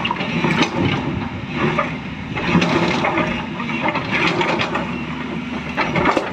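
A machine's engine running, with irregular knocks and clanks throughout.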